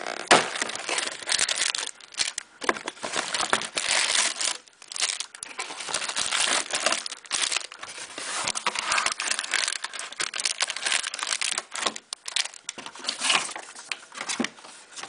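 Clear cellophane plastic bag crinkling as it is handled, in quick, irregular bursts of crackling with short pauses between them.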